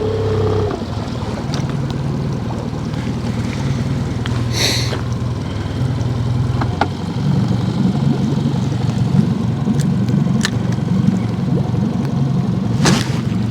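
Boat's outboard motor running steadily at low idle, with a few brief sharp clicks over it.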